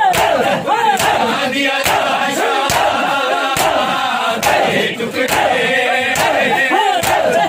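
A crowd of men chanting a Muharram lament in unison, with the sharp slap of hands striking bare chests together (matam) about once a second.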